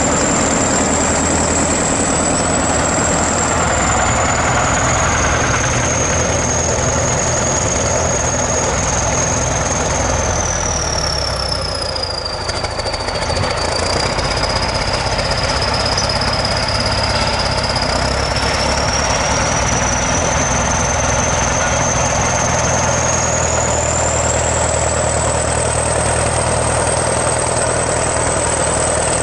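ChTZ T-170 bulldozer's diesel engine running steadily with a high whine above it. The whine sinks in pitch around the middle and climbs back up later, and the engine eases off slightly at that point.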